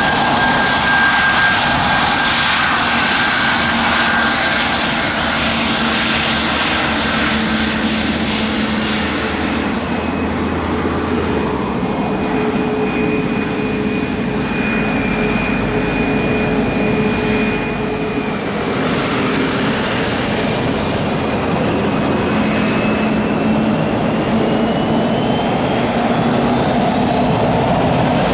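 Boeing 737 MAX 8-200 airliner's CFM LEAP-1B turbofan engines running at taxi power: a steady jet rush with thin whining tones that shift as the aircraft turns, and one whine rising in pitch near the end.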